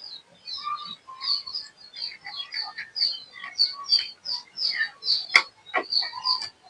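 Small birds chirping rapidly and repeatedly, several short high chirps a second, with other lower calls mixed in. There is one sharp click a little after five seconds in.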